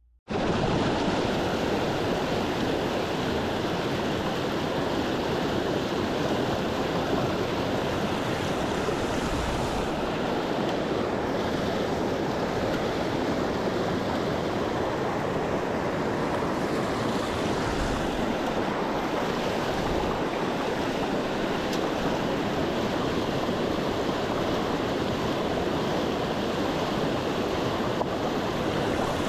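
Whitewater of river rapids rushing over rocks, heard up close and steady. It starts abruptly a moment in.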